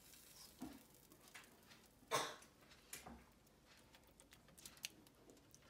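Faint scattered dabs and taps of a silicone basting brush spreading marinade over chicken on a wire oven rack, with one louder knock about two seconds in.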